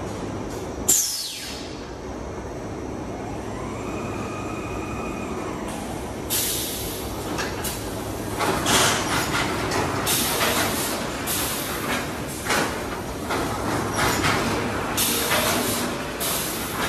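Automated yarn-cone packaging and palletizing machinery running with a steady hum. A sharp burst about a second in falls in pitch, and a motor whine rises and falls around four seconds in. From about six seconds on come many short, irregular hisses like compressed-air releases from the pneumatic actuators.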